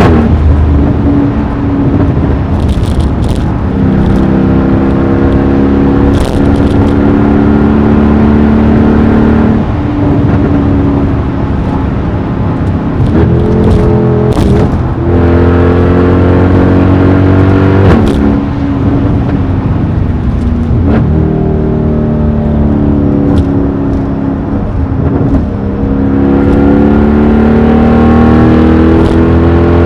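Mercedes-AMG E63 V8 with a loud exhaust, accelerating and revving through the gears: its pitch climbs and falls back at the shifts several times. Short sharp pops and crackles come from the exhaust here and there.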